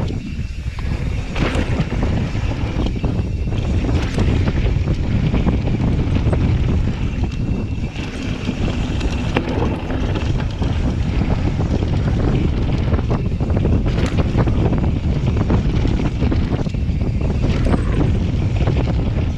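Mountain bike descending a dirt trail at speed: wind rushes steadily over the camera's microphone, with sharp knocks and rattles from the bike as it runs over bumps.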